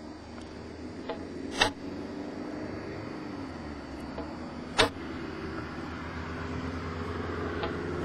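A steady engine drone that slowly grows louder, broken by three sharp clicks about three seconds apart.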